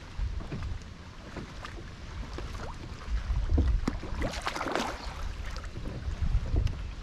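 Strong wind buffeting the microphone in low, gusty rumbles, with choppy lake water slapping against the boat's hull. There is a brief louder rush of noise about four to five seconds in.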